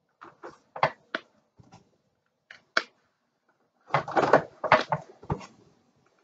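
Plastic art markers handled and clicking against each other and the table. Irregular short sharp clicks come first, then a denser clatter about four seconds in.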